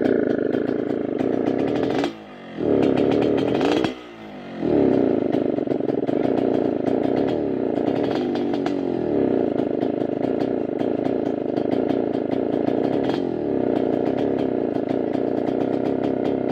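Yamaha RX-King two-stroke single-cylinder motorcycle engine running with the 'ngorok' exhaust note, a deep, snoring rasp. Twice, about two and four seconds in, the engine note falls away for about half a second and then picks back up.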